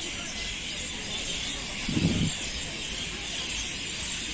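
Open-air ambience: a steady high hiss, with one brief low rumble about two seconds in.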